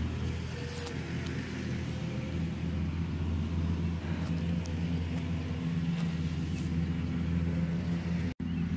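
Steady low mechanical hum of an engine or motor running, with a few faint ticks over it; the sound cuts out for an instant near the end.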